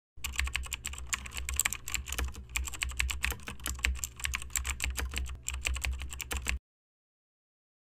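Rapid computer-keyboard typing clicks over a low steady hum, used as the sound of on-screen text being typed out. The typing cuts off suddenly after about six and a half seconds.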